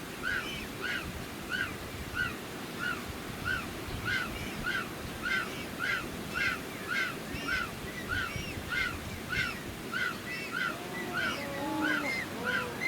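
An animal giving a long, very regular series of short honking calls, about three a second, that rise and fall in pitch. A few lower calls from a second animal join near the end.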